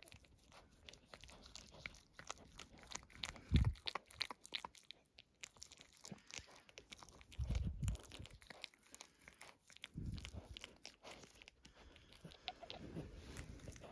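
Mother dog licking and mouthing a newborn puppy: a steady run of small wet clicks and smacks from her tongue and mouth, with a few soft low thumps.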